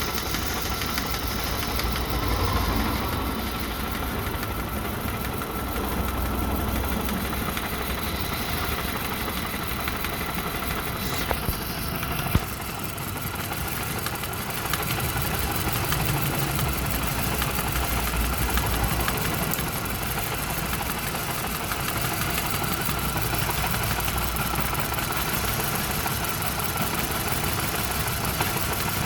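Volvo's Ford Duratec four-cylinder engine idling unevenly with a misfire, its low rumble surging irregularly. A couple of sharp clicks come about halfway through. The misfire goes with a cylinder 2 misfire code and an ignition coil B circuit code.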